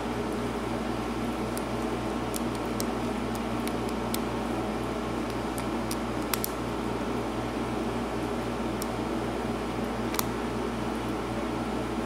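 Faint, scattered small clicks of a lock pick and tension wrench working the pin stack of a padlock fitted with serrated security pins, a sharper click about six seconds in and another about ten seconds in. A steady hum of room noise runs underneath and is the loudest sound.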